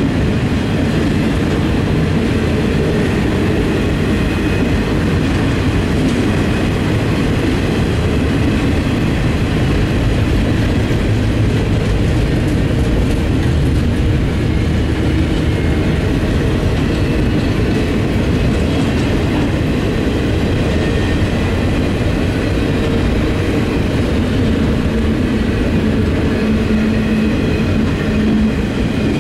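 Norfolk Southern double-stack intermodal train's container cars rolling past at close range: a steady, loud rumble of steel wheels on rail that holds even throughout.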